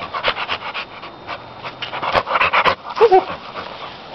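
American Pit Bull Terrier panting hard and fast, about five breaths a second, winded from chasing a flirt pole lure. A short pitched vocal sound cuts in about three seconds in.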